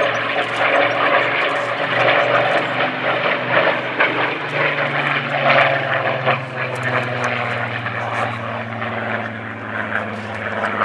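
Spitfire's V12 piston aero engine droning as the fighter flies past overhead, its pitch dropping a little about halfway through as it passes.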